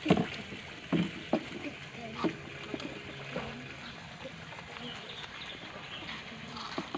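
A few short knocks, the loudest just at the start and others about a second and two seconds in, over a faint outdoor background with low murmured voices.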